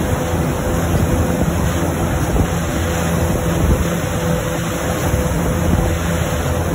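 Steady rush of wind on the microphone and churning wake water behind a towing boat, with the boat's inboard engine running steadily underneath.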